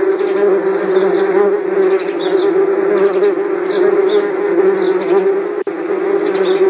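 Wasps buzzing in a steady, dense drone with a brief dropout near the end.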